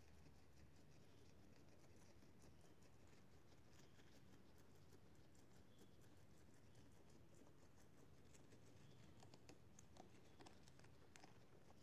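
Faint crisp clicks and nibbling of a guinea pig chewing dry corn husk, with a few stronger crunches near the end.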